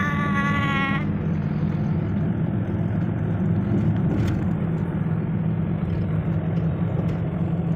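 Steady low road and engine rumble inside the cabin of a moving Suzuki car. A vehicle horn sounds for about a second at the start.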